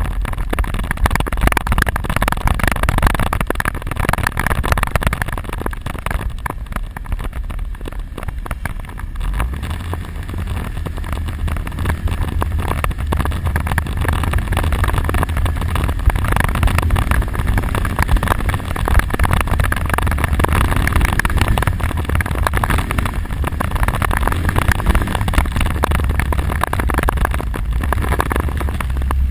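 Quad ATV engine running as it is ridden, with a steady low rumble under a constant rushing noise.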